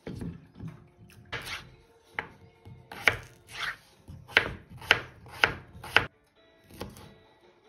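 Chef's knife chopping raw potatoes on a wooden cutting board: a run of sharp cuts, each ending in a knock on the board, about two a second.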